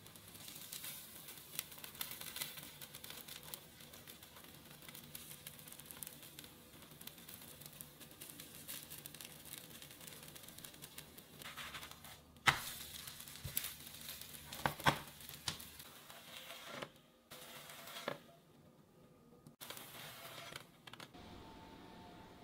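Zucchini and carrot pancake sizzling and crackling in oil in a nonstick frying pan, with a silicone spatula working it. A sharp knock about twelve seconds in, then a few more clicks, as the pancake is lifted and turned. A few soft musical tones near the end.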